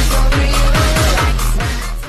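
Loud electronic dance music with a heavy kick drum on a steady beat, about two beats a second, and synth tones.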